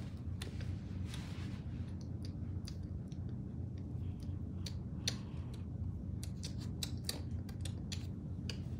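Marker drawing along a plastic ruler on cardboard: scattered small scratches and clicks as the pen and ruler move, over a steady low hum.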